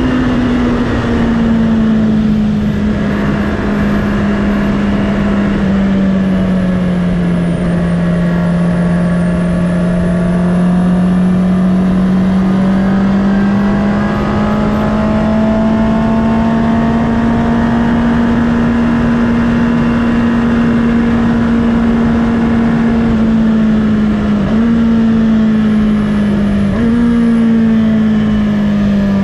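2019 Honda CB650R's inline-four engine at a steady part-throttle cruise, its pitch sagging and slowly climbing again, with two quick jumps in pitch near the end.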